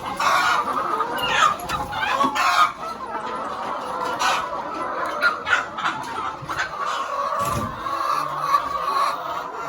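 A flock of laying hens clucking, many birds calling at once in a continuous, irregular chatter.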